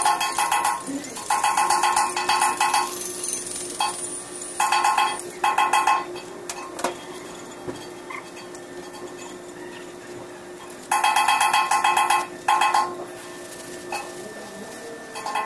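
Hand tool scraping across the metal of an air compressor back plate during cleaning: several bursts of harsh, rasping metallic scraping, each up to about a second and a half long, with a long pause in the middle.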